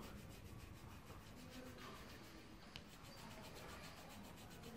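Near silence: faint room tone, with one small click nearly three seconds in.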